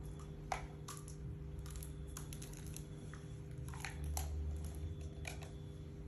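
Thin plastic water bottle crackling and crinkling as it is handled: a scatter of sharp clicks and crunches, in clusters around two and four seconds in.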